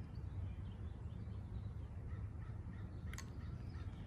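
Greenworks Pro electric pressure washer idling with the gun trigger released, a faint steady low hum from a machine that keeps running at idle rather than shutting off. A single brief click about three seconds in.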